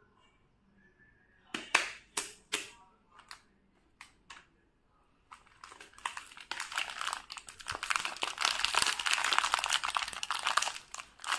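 Plastic cookie-packet wrapper crinkling in gloved hands. A few separate sharp crackles come first, then from about halfway the crinkling runs on continuously, loudest toward the end.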